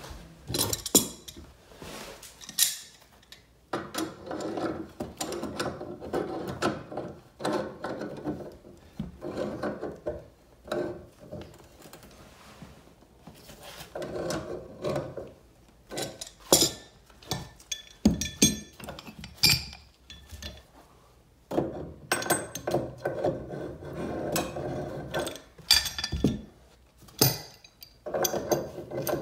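Pipe wrench and pliers working on a brass steam radiator valve: repeated metal clicks and clanks, with stretches of scraping and grinding as the tools grip and turn the fitting.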